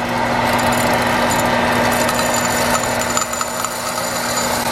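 Hot-air popcorn popper running steadily, its fan and motor blowing with a constant hum as it roasts coffee beans.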